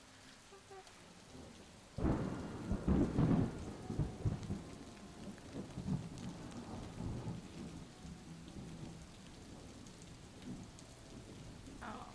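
Rain falling steadily, with a clap of thunder about two seconds in that rumbles on and slowly fades over several seconds.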